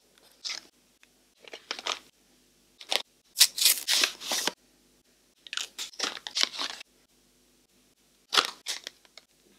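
Small cardboard skincare boxes being handled and opened, with the product pulled out: five short bursts of rustling and scraping packaging, the loudest about three and a half to four and a half seconds in.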